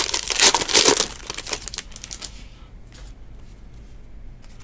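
Foil wrapper of a football trading card pack crinkling and tearing as it is ripped open, a quick run of crackles over about the first second. Then quieter rustling and light clicks as the cards are slid out and flipped through.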